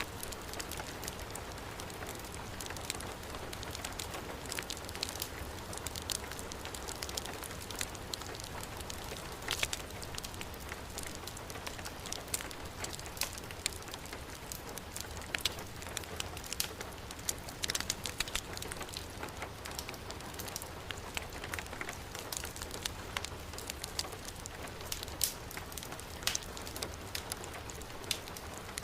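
Steady heavy rainfall mixed with a wood fire crackling, with frequent sharp pops and snaps scattered over the even hiss of the rain.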